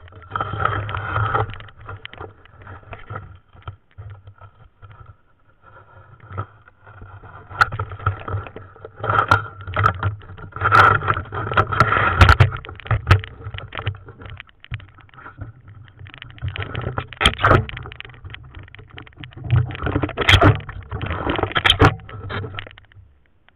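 Muffled underwater knocks, scrapes and rustling in irregular bursts with a few sharp clicks, from handling a speargun with a freshly speared snakehead on its spear.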